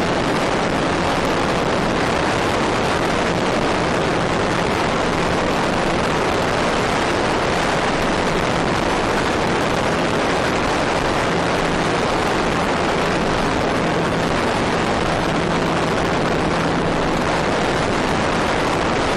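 Steady rushing wind and motor noise recorded by a camera aboard a Trainstar RC plane in flight, with a faint low hum that fades in and out.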